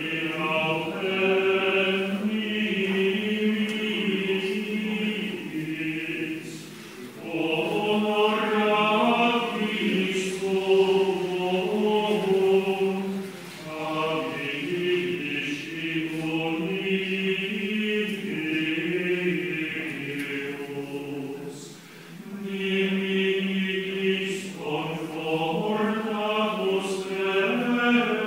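Latin plainchant sung unaccompanied by a choir, in long flowing phrases broken by short pauses about 7, 13 and 22 seconds in.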